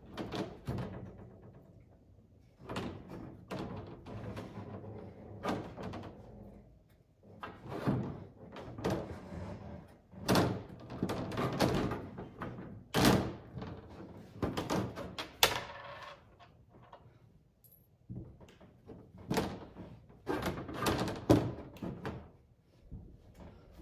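Clear plastic UTV rear window panel being handled and pressed onto the roll cage: a long series of irregular thunks, knocks and rattles.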